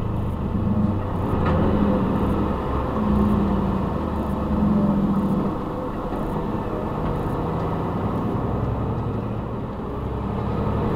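Truck's diesel engine running under way, heard from inside the cab: a low drone that swells and eases several times in level and pitch.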